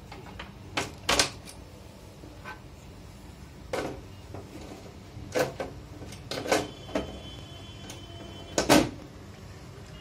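Plastic front cover and keypad assembly of a fire alarm control panel being handled and fitted onto its housing: a string of separate knocks and clicks, the loudest near the end.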